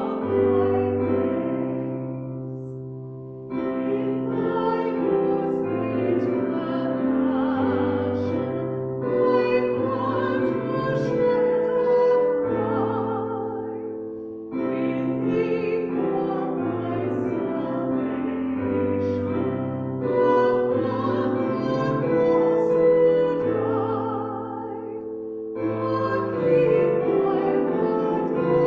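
A hymn sung by a few voices with keyboard accompaniment, slow sustained notes over a stepping bass line, line by line with short pauses between phrases.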